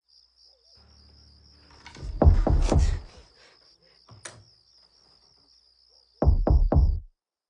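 Three sharp knocks in quick even succession near the end, the 'toc toc toc' of someone knocking on wood. Before them come a steady high warbling tone and a cluster of heavy thuds about two seconds in.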